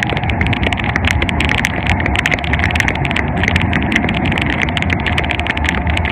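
Quick, irregular clattering and knocks from someone running with a handheld phone: footfalls and the phone jostling in the hand, over a steady low rumble.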